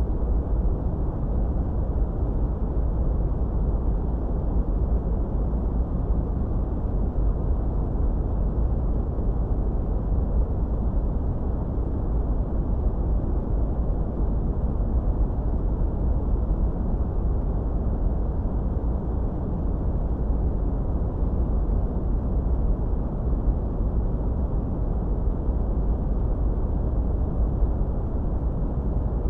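Steady, unchanging synthetic noise, deep and dull, with most of its weight in the bass and little treble: a continuous rushing hiss-rumble.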